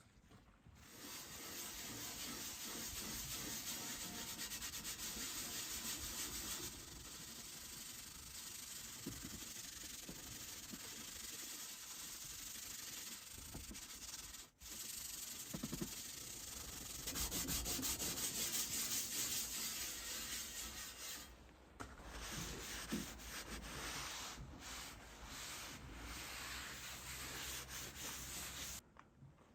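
Steel wool scrubbing rust off the steel cooktop of a Blackstone griddle: a steady rasping rub, broken by a brief stop about halfway through and a short lull about two-thirds of the way in.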